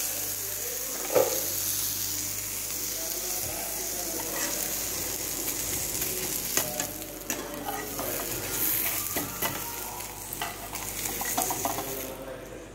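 Thin batter crepe sizzling in a nonstick frying pan, with a slotted spatula scraping and tapping against the pan as it lifts and turns the crepe. A sharp knock about a second in is the loudest sound; the sizzling fades near the end.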